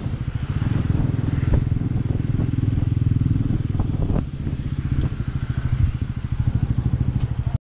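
Motorcycle engine running steadily on the move, its firing pulses close and even, with a few light clicks and knocks over it.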